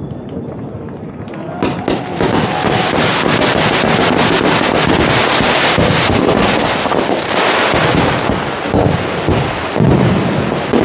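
Fireworks display: low rumbling at first, then about two seconds in a dense, continuous barrage of crackles and bangs sets in and keeps going.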